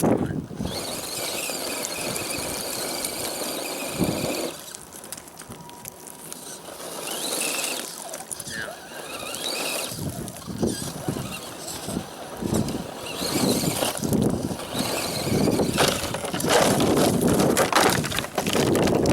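Electric motor and geared drivetrain of an RC scale crawler whining. A steady high whine for the first four seconds, then short whines that rise and fall in pitch with the throttle, with louder rough noise through the second half.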